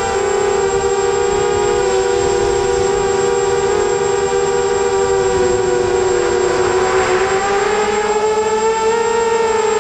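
FPV drone's electric motors and propellers whining in flight: a steady, loud multi-tone hum whose pitch dips and rises with the throttle, with a brief rush of wind about seven seconds in.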